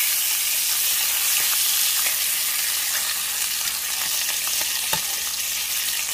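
Smoked pork jowl bacon sizzling in a frying pan over medium-low heat as its fat renders, a steady hiss with scattered small pops and one sharper pop about five seconds in.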